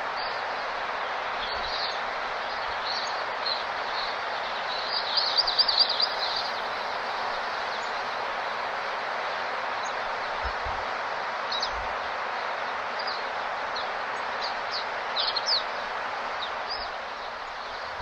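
Small birds chirping in short, high notes, with a quick flurry of chirps about five seconds in and another near the end, over a steady, even rushing background of outdoor ambience.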